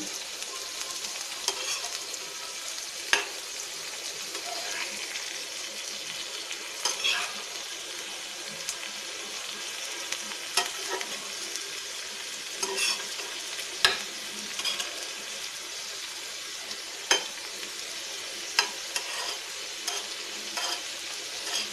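Halved boiled eggs and masala sizzling steadily in oil on a flat dosa tawa. A metal spatula scrapes and taps on the pan now and then as the pieces are turned.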